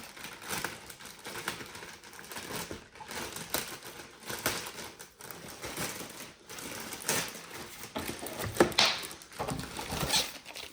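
Packaging being handled while robot-vacuum accessories are unpacked: an irregular run of clicks, taps and plastic crinkling, with a sharper click about eight and a half seconds in.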